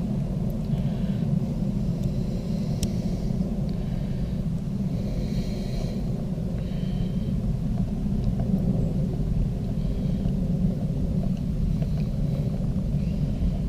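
A steady low rumble throughout, with a few faint, light clicks and scrapes of a screwdriver turning the cover screws on an outboard carburetor.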